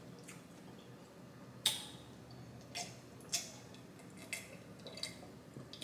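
A person drinking from a glass: a handful of short, sharp gulps and clicks spread over several seconds, the loudest about one and a half seconds in.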